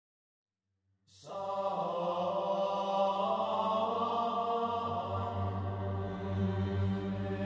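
Background music of a Buddhist mantra chant fading in about a second in after complete silence: held, sustained tones over a low steady drone.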